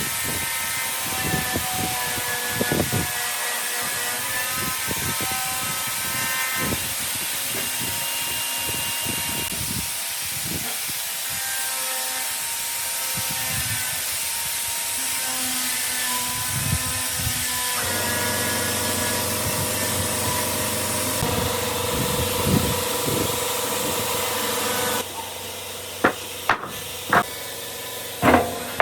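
Woodworking power tool running with a steady hiss and a faint whine, changing abruptly a few times. Near the end it drops lower and a few sharp knocks stand out.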